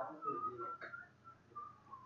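A person whistling softly: a string of short, wavering notes held at one middle pitch.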